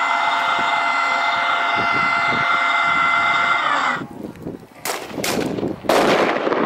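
A steady hiss with a high whine cuts off abruptly about four seconds in. Then three sharp bangs follow within about a second, the last the loudest: firecrackers set off as mock cannon fire from an RC Leopard 2A6 model tank.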